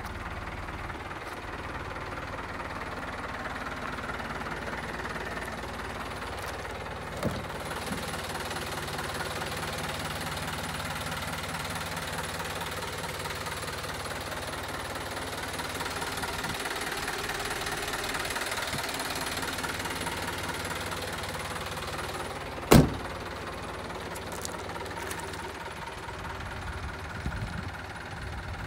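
Mitsubishi Rosa minibus's 4D31 four-cylinder turbodiesel idling steadily. About two-thirds of the way through there is a single loud thump.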